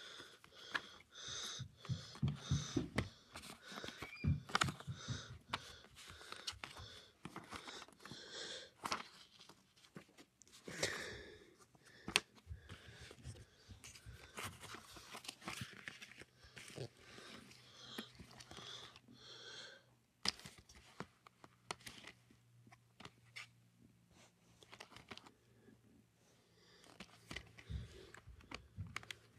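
Close handling of plastic DVD cases and their packaging: irregular clicks, taps, rustling and crinkling. A low steady hum joins about two-thirds of the way through.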